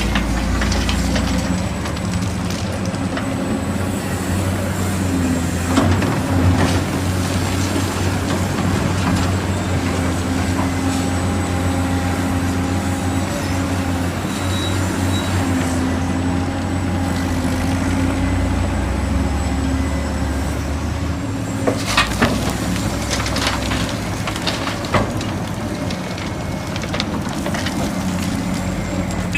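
A large engine running steadily, with scattered clicks and knocks, the loudest around a quarter and three quarters of the way through.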